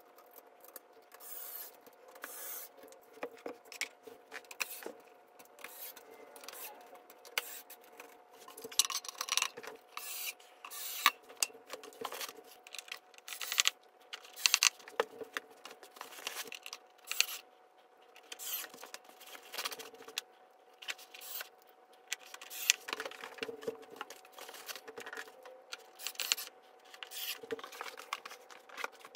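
Hand assembly of a metal-frame nightstand: the metal tubes and wood-look shelf panels knock, scrape and click as they are handled and fitted together, with small hardware rattling. The knocks come irregularly, over a faint steady hum.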